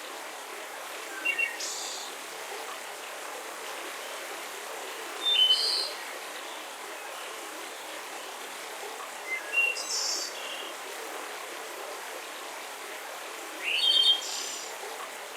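Small birds chirping in four short bursts of a second or less, roughly every four seconds, over a steady hiss of forest ambience.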